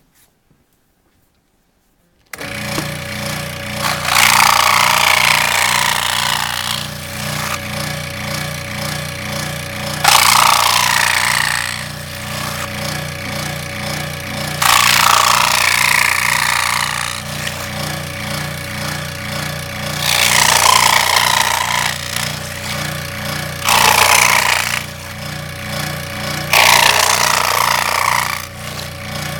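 Benchtop scroll saw switched on about two seconds in, its motor and up-and-down blade running with a steady, fast-pulsing hum. About six times the sound swells into a louder rasping stretch as the blade cuts short relief cuts into cardboard.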